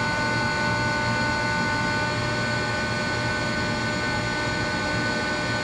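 Rotary screw air compressor running steadily: an even machine noise with several steady whining tones over it, one of which drops out about two seconds in.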